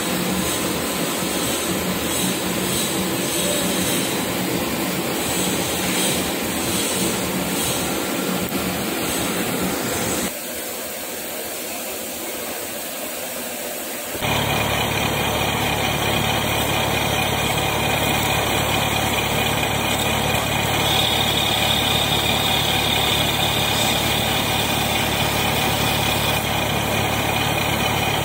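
Metal lathe running steadily. About ten seconds in the sound drops quieter for a few seconds, then comes back louder with a deeper hum.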